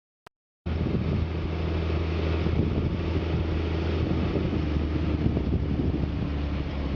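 Fendt 936 Vario tractor's six-cylinder diesel engine running steadily under load while pulling a seven-furrow Kverneland plough. The sound cuts in suddenly about half a second in, just after a faint click.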